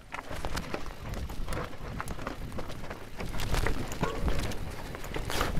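Mountain bike riding down a rocky forest trail: a fast, irregular clatter of the tyres, frame and drivetrain knocking over stones and roots, over a low rumble of jolts and wind on the bike-mounted action camera.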